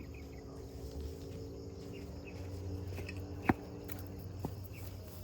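Footsteps of a hiker walking down a trail, with one sharp click or tap about three and a half seconds in, over a steady low hum.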